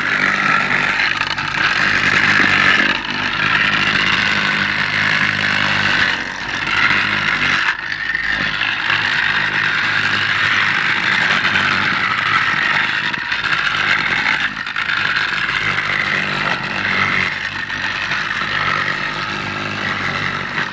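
Hand tie tampers (HTT) vibrating as they compact railway ballast under the sleepers: a steady engine drone under a loud rattling hiss, with brief dips every few seconds.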